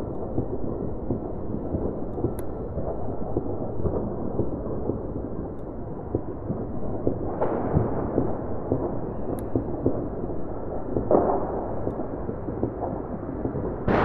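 Large fireworks exploding in the distance: a continuous rolling rumble of booms and crackle, with a sharper, louder bang about halfway through and another about three-quarters of the way in.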